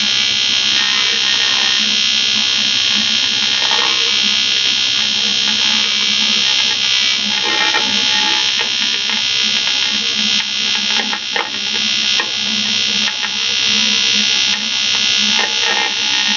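AC TIG welding arc on thick 6061 aluminum from an Eastwood TIG 200 AC/DC: a loud, steady electrical buzz, with a few brief crackles as the weld goes on.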